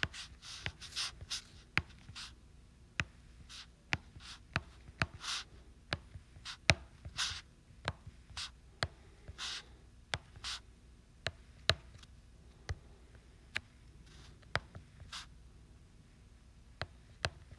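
A stylus tapping and sliding on an iPad's glass screen while handwriting: irregular sharp clicks as the hard tip touches down, between short, light scratchy strokes.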